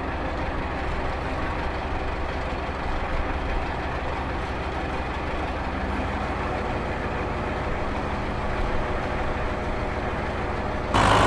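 Farm tractor engine running steadily under load while pulling a field implement, a low, even drone. Just before the end a louder, broader rushing noise cuts in.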